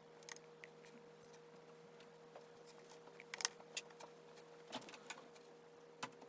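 Scattered faint clicks and taps of metal tweezers and fingertips handling small parts on an iPhone 7 display assembly, about seven in all, the sharpest about three and a half seconds in. A steady faint hum runs under them.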